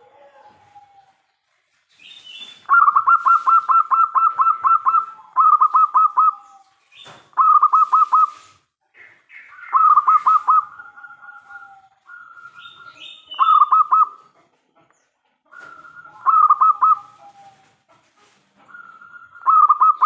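Zebra dove (perkutut) cooing: about seven bursts of rapid staccato notes, each repeated quickly over one to two seconds, with short higher chirps between bursts. The first burst, about three seconds in, is the longest.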